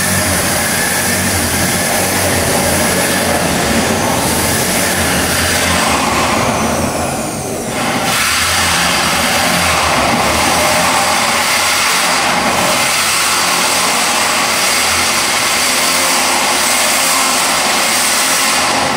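Electric power drill running under load, drilling. It winds down about seven seconds in, starts again a second later, and winds down again near the end.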